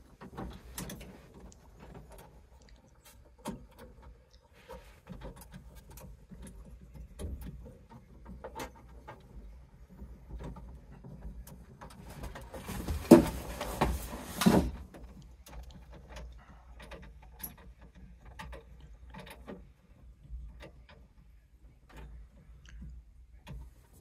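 Small metallic clicks and knocks of hands and tools working on a combi boiler's pressure relief valve as it is refitted into its brass body, with a louder clatter lasting a couple of seconds about halfway through.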